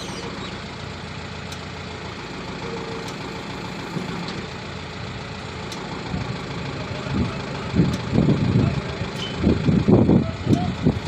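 Diesel engine of heavy machinery running steadily at idle, with voices over it from about six seconds in.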